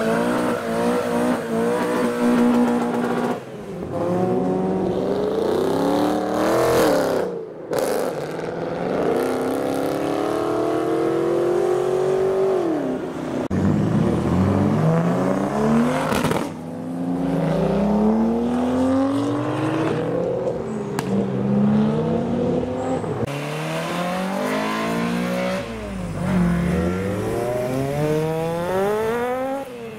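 Modified tuner cars accelerating hard away one after another, engines revving up through the gears. The engine pitch climbs and then drops again and again, about seven times.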